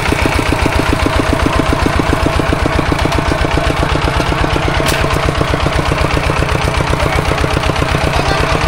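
Single-cylinder diesel engine of a walking tractor (two-wheel hand tractor) running steadily, with a fast, even chugging of about nine beats a second.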